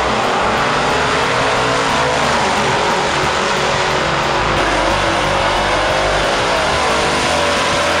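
V8 drag-racing muscle cars launching side by side and accelerating at full throttle down the strip, engines running loud and continuous.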